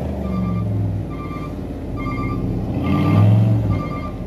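Vehicle engine running, its revs rising about three seconds in, with a reversing alarm beeping about once a second over it.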